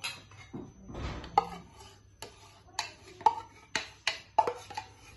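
Sharp metallic clinks and knocks from a tin can and wire whisk against a nonstick frying pan while condensed milk is poured, coming about twice a second from about a second in.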